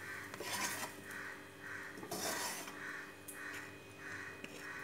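Plastic spatula scraping food residue off the inside of a kadai, in short repeated strokes about twice a second.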